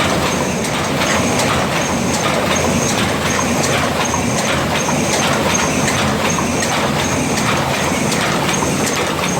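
Paper-cup forming machine running at speed: a steady mechanical clatter with a regular clack on each cycle, a little more than once a second.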